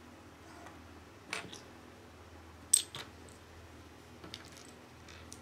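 Small plastic Lego pieces clicking as they are handled and fitted together. There are a few scattered clicks, the sharpest about halfway through with a second one just after it.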